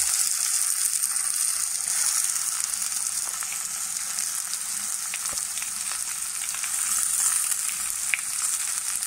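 Freshly ground tomato, shallot and chilli paste sizzling steadily in hot coconut oil in a clay pot, with a few light clicks from a steel spoon stirring it.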